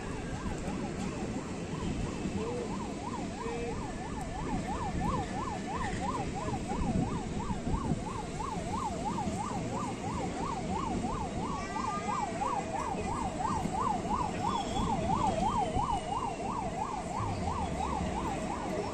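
Indian Railways passenger coaches running through a station at speed, a steady rumble of wheels on track. Over it, a siren-like wail rises and falls quickly, about three times a second.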